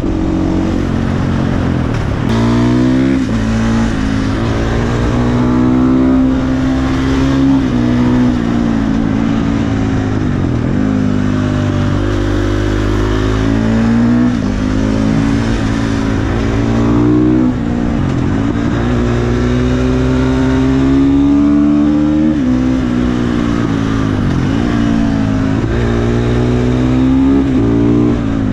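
KTM 450 supermoto's single-cylinder four-stroke engine under way. It revs up and drops back again and again, about ten times, as the bike accelerates through the gears and eases off between bends.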